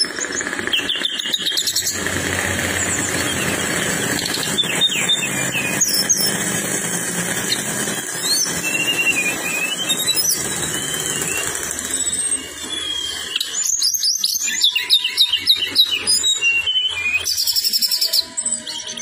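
A tledekan songbird singing: quick high whistled chirps and short trills, growing into a dense run of rapid trilled notes in the last few seconds, over a steady background hiss and low hum for much of it.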